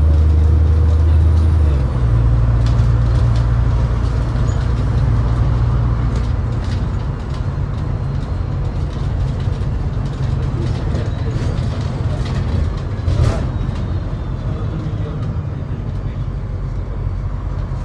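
MAZ-203 city bus running under way, a steady low engine drone with road rumble; the engine note drops about two seconds in. One sharp knock sounds later on.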